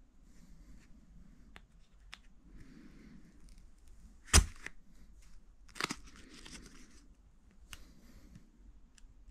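A cardboard shipping box is being handled and its packing tape cut and torn, with faint scattered clicks and scrapes. A sharp knock comes about four seconds in and is the loudest sound, followed by a smaller one about a second and a half later.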